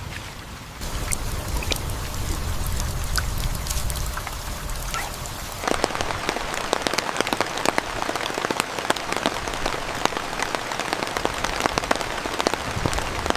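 Heavy rain falling, with many sharp drop impacts over a steady wash. A low rumble runs under it for the first half, then the rain changes abruptly around halfway to denser, crisper pattering without the rumble.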